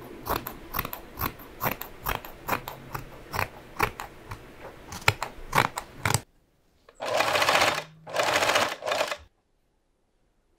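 Sewing machine stitching: first slowly, with quick separate clicks of the needle for about six seconds, then after a break two fast runs of about a second each.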